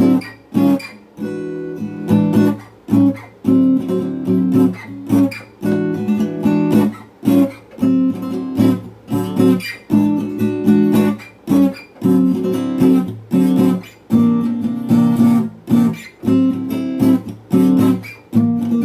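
Jasmine steel-string acoustic guitar strummed chord after chord in a steady rhythm, each chord ringing briefly before the next stroke.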